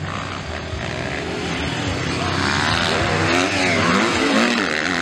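Motocross bike engines revving up and down as riders take the track, the pitch climbing and dropping repeatedly and the sound growing louder toward the end as bikes come close.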